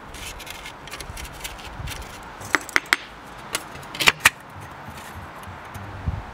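Scissors cutting a thin sheet of mica, and the cut mica being handled in a pressed-metal stove window frame: light crinkling, then a handful of sharp clicks and snaps in two quick clusters around the middle.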